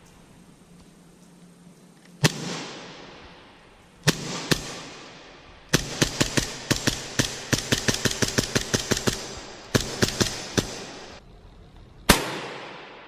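CO2-powered airsoft replica of the double-barrelled 2011 Dueller pistol firing. First come a few single shots, then a rapid string of shots at about four or five a second, then a few more single shots. Each is a sharp crack with a fading tail.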